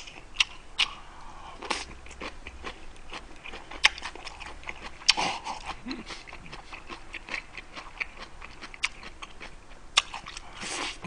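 A person chewing kimchi close to a microphone: irregular crunches and wet mouth clicks.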